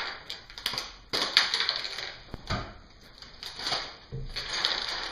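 Loose plastic Lego bricks clicking and clattering against each other as they are handled and sorted, with rustling, in a quick irregular patter of small clicks.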